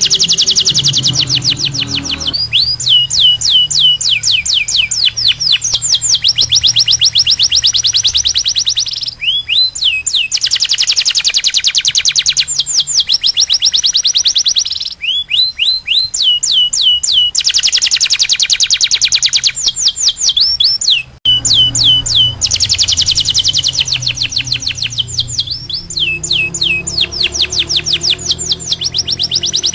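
Domestic canary singing: fast trills lasting a few seconds each, alternating with runs of short whistled notes that slide downward, repeated over and over with only brief pauses.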